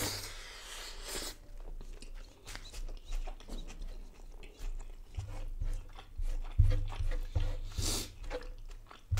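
Close-miked eating by hand: chewing and mouth clicks, with short wet clicks as fingers mix fish curry and rice on a plate. Several low thuds come in the second half.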